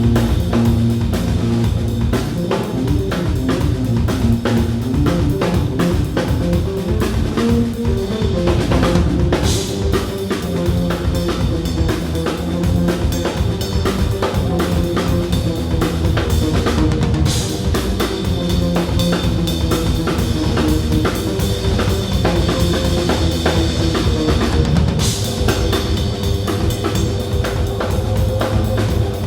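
Live band playing an instrumental passage: a drum kit keeps a steady beat with kick and snare under sustained bass and melody lines, with cymbal crashes every eight seconds or so.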